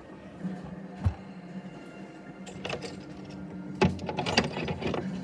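Small electric cooling fan mounted in a wooden box, running with a steady low hum, with irregular knocks and clicks over it, most of them about four seconds in.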